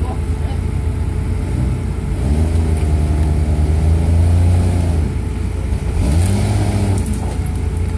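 Engine of a modified off-road rig revving as it climbs over rocks. The revs climb about two seconds in and hold for about three seconds, drop back, then rise briefly again a second later before settling.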